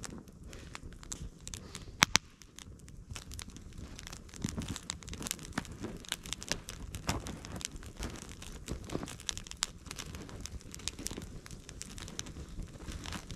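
Wood fire crackling in burning split-log torches, an irregular run of sharp pops and snaps with one loud pop about two seconds in.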